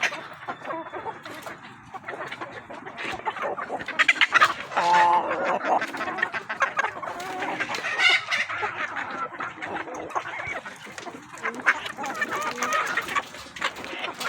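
Chickens clucking and calling in quick succession, with a rooster's drawn-out crow about five seconds in and another loud call about eight seconds in.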